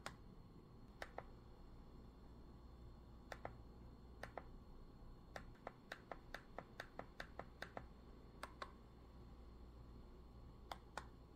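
Buttons on a TV remote control being pressed with short, sharp clicks to move through an on-screen menu: a few separate presses, then a quick run of about ten in the middle, then a last couple near the end.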